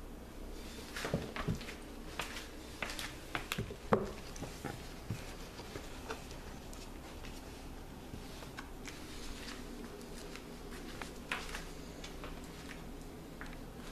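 Scattered soft rustles and light clicks, mostly in the first few seconds and again near the end, from a puppy shifting in its fabric bed and stepping out onto a tiled floor, over a faint steady hum.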